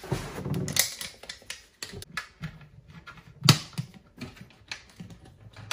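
Slow cooker's glass lid set onto the crock: a short scraping rustle, then a run of sharp clicks and taps as it settles and is adjusted on the rim, the loudest about three and a half seconds in.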